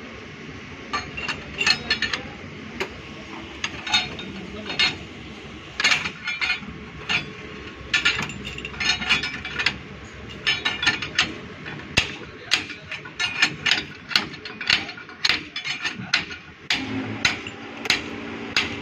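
Metal hand tools at work on truck brake parts: quick bursts of ratchet-like clicking mixed with sharp metallic knocks. A steady low hum starts near the end.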